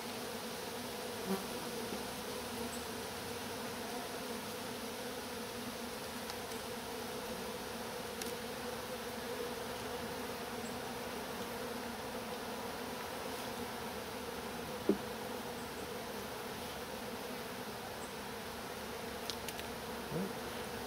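Steady buzzing of a honey bee colony in an opened hive, an even hum with no breaks. A single sharp knock sounds about fifteen seconds in.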